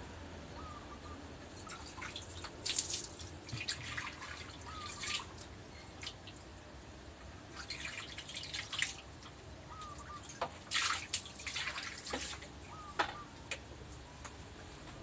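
Rustling and light clicking of a cotton sheet as a baby macaque crawls and scrambles over it. The sound comes in about four short bursts, with faint brief chirps in between.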